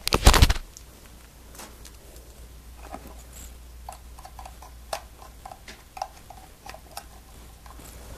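Handling noise from plugging cables into a capture card: a loud knocking bump in the first half second, then scattered light clicks and taps of plugs and cables being handled.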